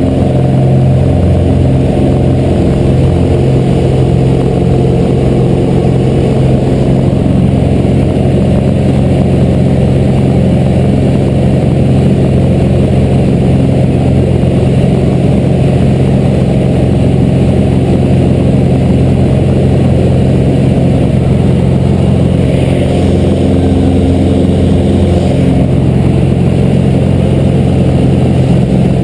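Single-engine propeller plane's piston engine running loud and steady at high power, heard from inside the cabin as the plane takes off and climbs.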